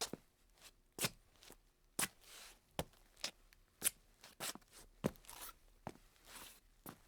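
Hard-soled dancing shoes tapping and stepping on a tile floor in an uneven rhythm of sharp clicks, about two a second, with a few brushing scuffs of the soles mixed in.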